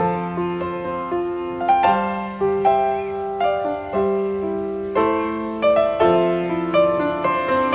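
Background piano music: a gentle melody of single notes over held low notes.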